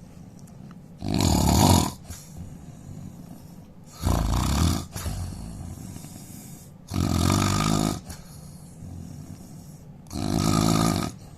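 A man snoring loudly: four loud snores about three seconds apart, each lasting about a second, with quieter breathing between them.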